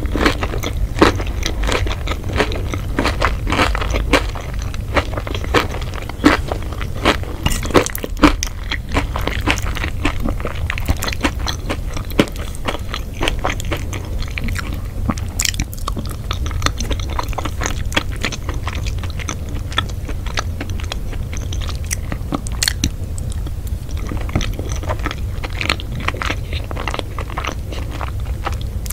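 Close-up chewing and crunching of crisp food, a rapid run of sharp crunches that is densest in the first ten seconds and thins to slower chewing later, over a low steady hum.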